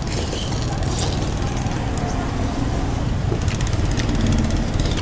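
A motor vehicle engine running steadily with a low rumble; a rapid, even pulsing joins in about three and a half seconds in.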